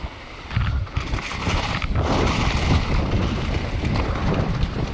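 Wind rushing over the microphone together with the rumble and rattle of a mountain bike riding fast down a dirt trail, with knocks as it runs over bumps; the noise drops briefly just after the start.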